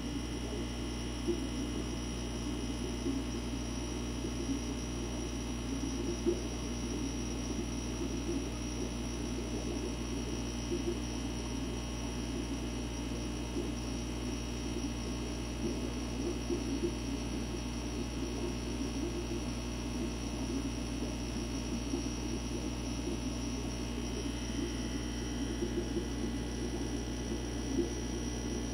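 Steady electrical hum of running aquarium equipment, with a low fluttering rumble and a few faint clicks.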